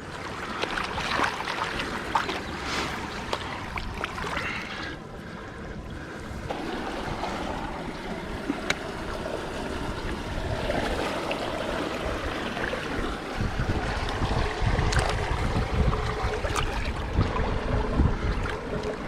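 Water running and splashing in a shallow pond, with scattered knocks and splashes in the first few seconds. Wind rumbles on the microphone from about two-thirds of the way through.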